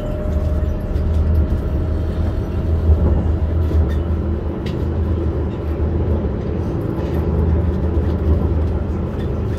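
Talent 2 (class 442) electric multiple unit under way, heard from inside: a steady deep rumble of wheels on track. A faint thin tone fades out about four seconds in.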